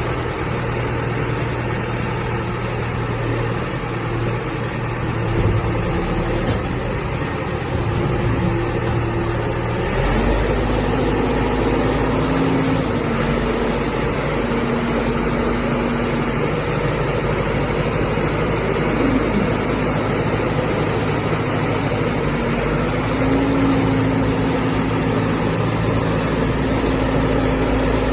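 Caterpillar 416C backhoe loader's four-cylinder diesel engine running steadily. About ten seconds in, its pitch steps up and its low rumble grows stronger, as the engine speeds up.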